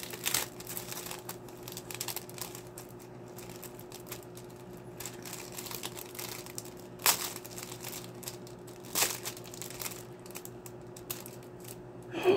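Clear plastic sleeve crinkling and rustling as a sticker sheet is worked out of it, with scattered sharp crackles, the strongest about seven and nine seconds in. A faint steady hum lies underneath.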